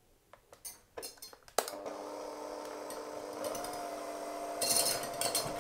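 A few clicks and knocks, then an immersion blender starts about one and a half seconds in and runs steadily, its pitch rising slightly about halfway through, as it mixes egg yolk and mustard in a measuring cup. Near the end a louder, hissy churning joins the motor.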